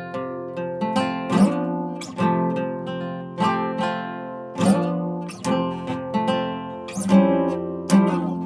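Acoustic guitar played with strummed chords and picked notes, each stroke ringing on into the next, at an unhurried, uneven pace of roughly one to two strokes a second.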